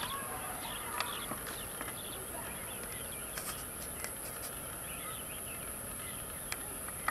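Open-air ambience with a steady high-pitched insect drone, scattered short bird chirps and a few faint clicks.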